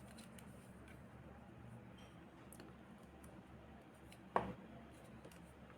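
Faint clicks and light handling of small plastic parts, with one sharper knock about four seconds in.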